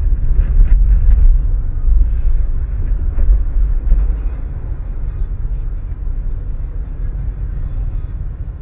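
Steady low rumble of a car's engine and road noise picked up by a dashcam inside the moving car, easing slightly from about four seconds in.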